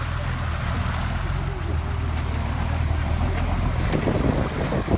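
Lifted Jeep Cherokee's engine running with a steady low rumble as the vehicle wades slowly through deep river water, with water washing around the body. The low sound turns more uneven about four seconds in.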